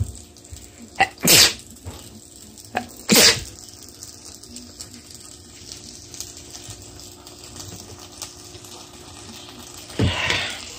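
A person sneezing twice, loudly, about two seconds apart, each sneeze with a brief sharp catch of breath just before it.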